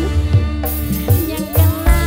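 Live band music played loud over a sound system, with deep drum beats, a shaker, and a melody line that slides upward about a second in.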